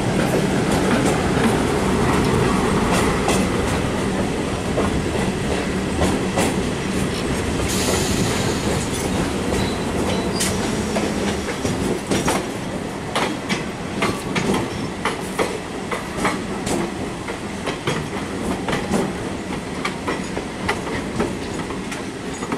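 Passenger train running over station approach tracks, heard from on board at an open window: wheels clattering over rail joints and points in a continuous run of sharp clicks, with a steady low hum through roughly the first half.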